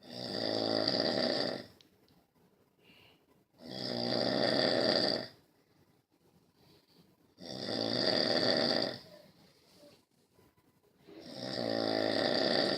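Snoring in a steady rhythm: four long snores, one about every three and a half to four seconds, with quiet between breaths.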